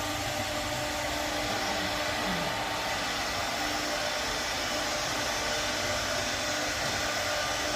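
Steady whir and hiss of an electric motor running, even in level throughout, with a faint steady hum.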